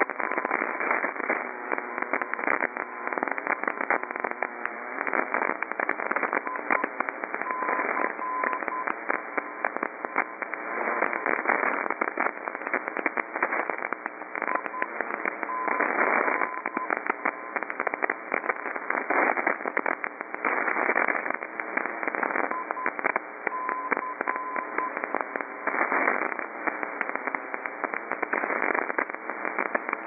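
Longwave radio reception on 245 kHz through an SSB receiver: dense crackling atmospheric static with a faint beat tone near 1 kHz. The tone is keyed in short Morse groups about every seven or eight seconds, the call-sign identifier of a non-directional aviation beacon (NDB).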